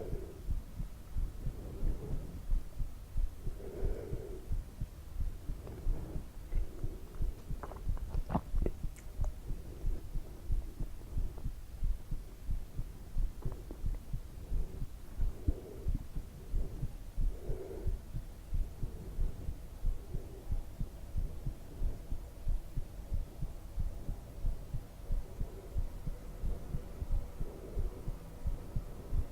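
Heartbeat sounds: steady, rhythmic low thumps, a little more than one beat a second, with a faint steady hum underneath in the second half.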